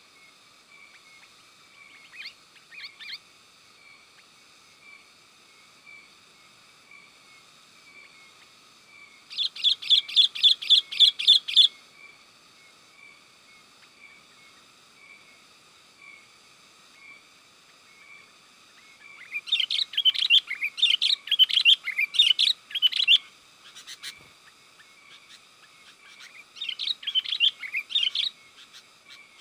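Sooty-headed bulbul chattering in three loud bouts of fast, rapidly repeated notes, with a short quieter bout near the start. A faint, steady run of regularly repeated chirps continues behind.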